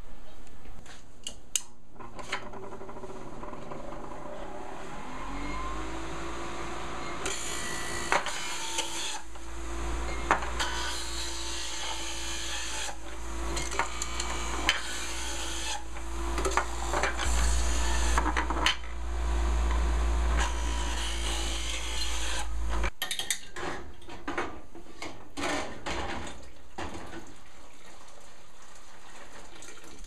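Electric fruit juicer motor spinning up about three seconds in and running with a steady hum. From about seven seconds in it grinds whole apples as they are pushed into it, with a dense rasping noise and sharp cracks. The motor cuts off suddenly after about twenty-three seconds, and a few light clicks and knocks follow.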